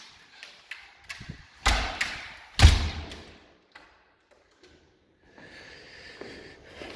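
A door being shut: a run of knocks and thuds, the loudest about two and a half seconds in. A faint steady tone sets in about five seconds in.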